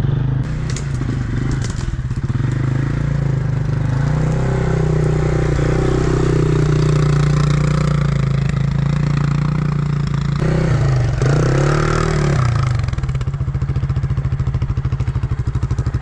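Quad bike engine running, revving up and holding for several seconds before dropping back, then a shorter rev up and down, then settling into an even, throbbing idle. A few light clattering clicks come in the first couple of seconds.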